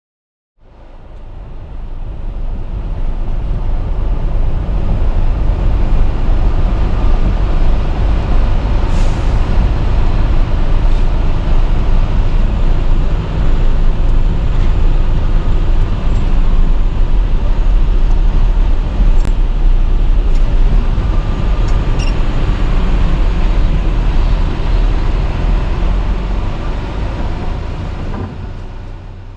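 Tractor-trailer under way: a steady low rumble of engine and road noise, fading in over the first couple of seconds and out near the end, with a few faint clicks.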